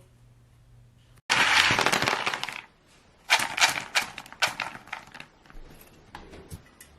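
Clattering of small hard objects: a sudden loud rattling burst about a second in, then a series of sharp clinks and knocks that trail off.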